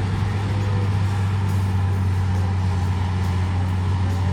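Large diesel engine of heavy earthmoving machinery running with a steady, deep drone.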